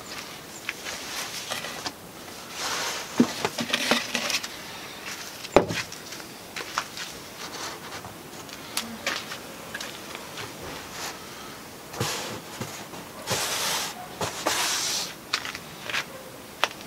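Woven fiberglass cloth rustling and swishing as it is unfolded and smoothed flat by hand over a panel, in several separate bursts, with a couple of light knocks.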